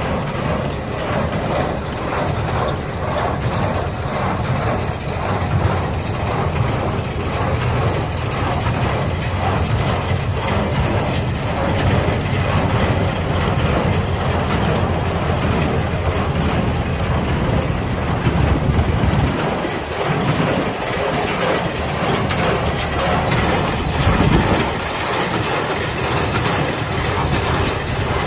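Hay baler at work: a continuous rhythmic mechanical clatter over a low engine drone.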